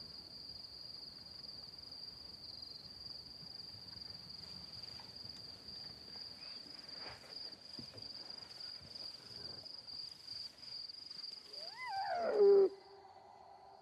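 Steady high-pitched chirring of night insects, with a loud animal call near the end that falls in pitch.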